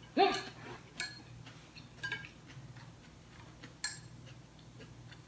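Chopsticks tapping and clicking against a plate, a few light taps spread a second or more apart. A brief voice-like sound comes just after the start.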